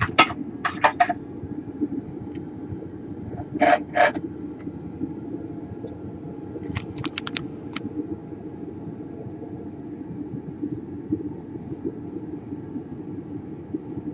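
Small hand-work noises at a repair bench: three short clusters of sharp clicks and scrapes, one at the start, one about four seconds in and one about seven seconds in, over a steady low hum.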